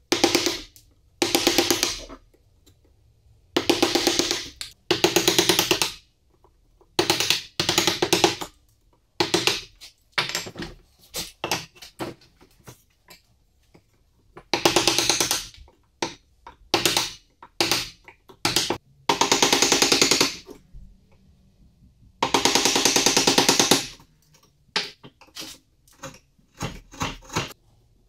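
Chisel cutting into a quartersawn beech block, working out a mortise, in irregular bursts of about a second each with short pauses between.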